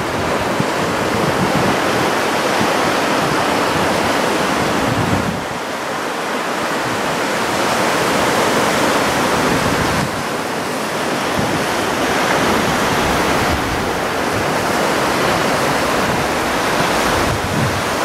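Small ocean waves breaking and washing up the beach, a steady rushing surf noise.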